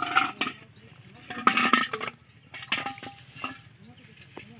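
Bursts of rustling and clattering from empty plastic bottles and a pot being handled in long grass, four times, the loudest about a second and a half in.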